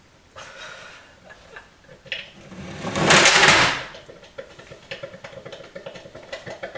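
Something falls over with a loud crash and clatter about three seconds in, amid handling noises and clicks: an accidental fall that the host calls technical difficulties.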